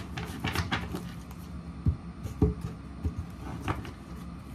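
Tarot cards being handled and shuffled by hand: a short rustle of cards near the start, then a few soft, separate knocks as the deck is squared against a wooden table, over a low steady hum.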